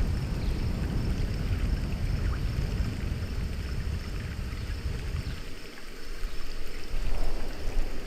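Rushing, splashing water around a river-rapids ride raft, with a deep rumble underneath that drops away about five and a half seconds in, then a brief swell of splashing near the end.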